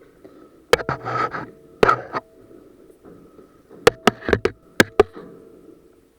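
Airsoft guns firing single shots: sharp snaps in two clusters, four around the first two seconds and six in quick succession about four seconds in.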